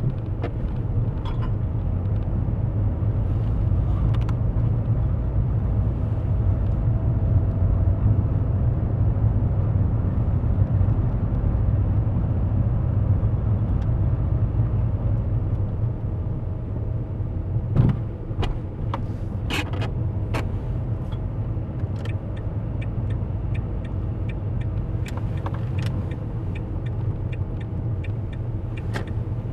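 Car cabin noise picked up inside a moving car: a steady low engine and tyre rumble, with a few sharp knocks and rattles, the loudest about 18 seconds in and more around 25 seconds.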